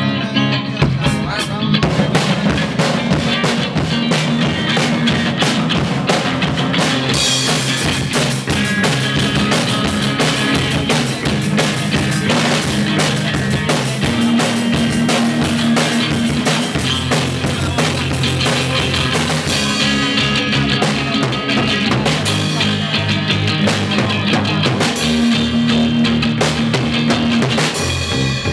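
Band playing loud music live in rehearsal: a drum kit with bass drum and snare over sustained amplified bass and guitar notes. A bright cymbal wash comes in about seven seconds in and drops away around twenty seconds.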